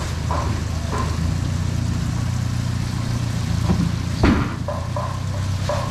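A vehicle engine idling with a steady low hum, with one sharp knock about four seconds in and faint voices in the background.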